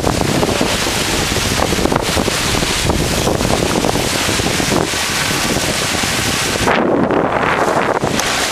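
Wind buffeting the microphone aboard a sailboat under sail, a loud steady rushing hiss. The high hiss briefly falls away about seven seconds in, then comes back.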